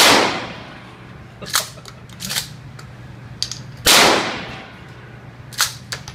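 Remington 870 12-gauge pump-action shotgun fired twice, about four seconds apart, each blast ringing off for about a second. After each shot the pump is racked back and forward with two quick metallic clacks, chambering the next shell.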